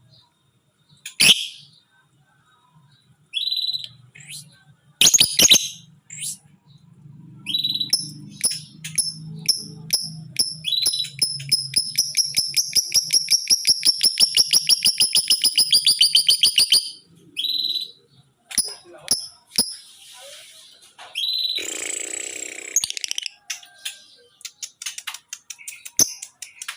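Lovebird calling: a few sharp shrill shrieks, then a long rapid chattering trill of high pulsed notes lasting about ten seconds, its 'ngekek' call, given in the broken, erratic form keepers call 'ngekek konslet'. Scattered shrieks and a short scratchy burst follow.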